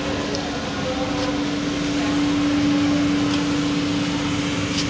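Bottle conveyor line and its drive motors running: a steady machine hum with one strong constant tone, over an even noise, with a few faint light clicks.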